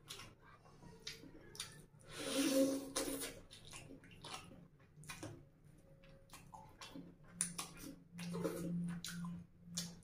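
Close-up wet eating sounds: chewing clicks and lip smacks throughout, with a loud wet slurp about two seconds in as rice and curry are sucked off fish bones. Near the end comes a low humming sound from the eater along with more sucking.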